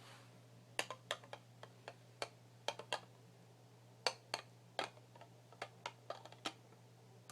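Fingernails tapping on a glass nail polish bottle: about twenty sharp, irregular taps in quick clusters, starting about a second in.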